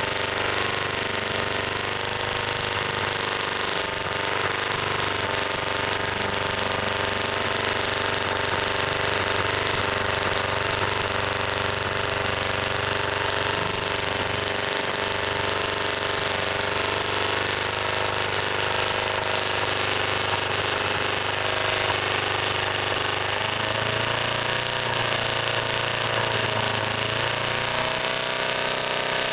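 Microcosm M12 miniature single-cylinder gas engine running at a steady speed. Its speed shifts in the last few seconds.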